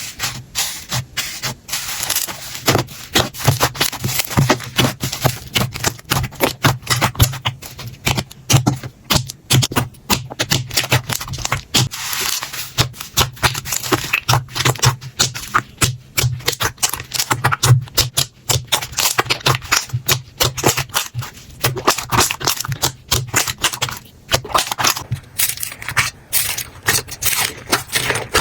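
Slime being squeezed and poked by hand, giving a dense, rapid run of sticky pops and crackles.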